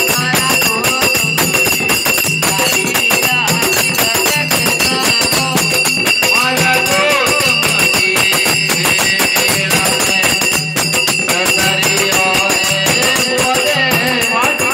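Music with fast, dense percussion and a wavering melody line, running steadily throughout.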